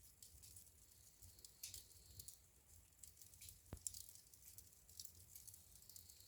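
Wood fire in a fireplace crackling faintly: a steady scatter of small, irregular crackles over a low rumble of flame, with one sharper pop a little past halfway.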